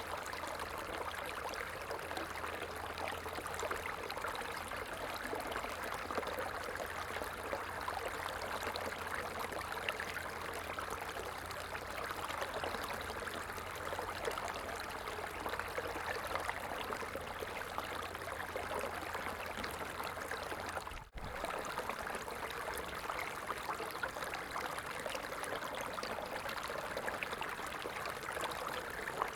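Running water flowing steadily, an even rushing sound without a break except for a split-second dropout about two-thirds of the way through.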